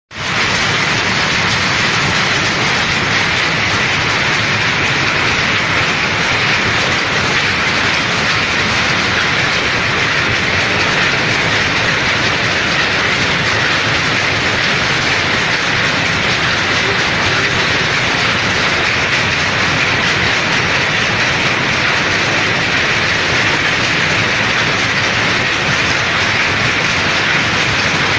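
Textile mill machinery running: a loud, steady, dense mechanical clatter that starts abruptly and does not let up.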